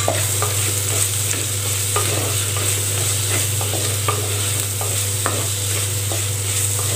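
Wooden spatula stirring and scraping shallots, garlic and tomato sautéing in a clay pot, with irregular knocks of the spatula against the pot over a steady frying sizzle and a low hum.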